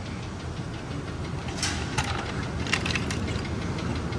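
Steady low rumble of an auto repair shop, with a few sharp clicks and knocks about two seconds in.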